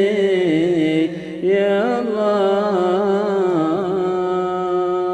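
Voice singing the closing phrase of an Arabic devotional qasida as a wordless, ornamented melisma over a steady lower drone. It settles into one long held note near the end.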